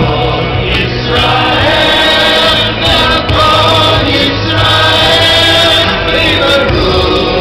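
Amplified music with several voices singing together in long held notes over a steady low bass, played through an outdoor stage's sound system.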